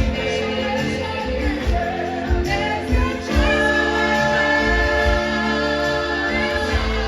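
Music with singing: a song with a female lead voice over a steady bass accompaniment.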